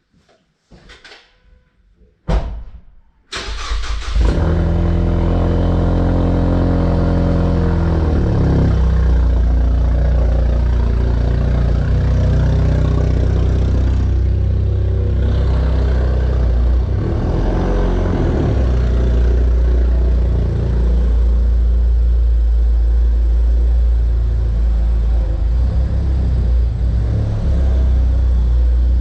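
A car engine starting about three seconds in, then running steadily and loudly.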